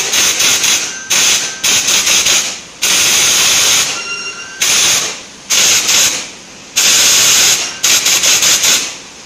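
Handheld water mist gun spraying a fine mist with a loud hiss. The spray starts and stops about eight times in bursts of roughly a second each.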